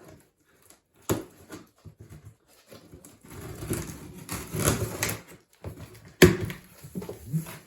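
A large cardboard box being handled and opened: sharp knocks about a second in and again near the end, with a few seconds of cardboard and packing rustling between them.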